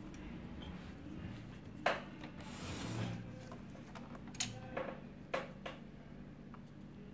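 Hard plastic parts inside a laser printer being handled: a sliding scrape about three seconds in, and several sharp clicks, one just before two seconds and a quick cluster between four and six seconds, over a steady low hum.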